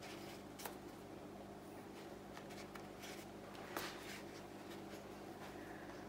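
Quiet room tone with a steady low hum, broken by a few faint clicks and scratchy rustles, the loudest click about four seconds in.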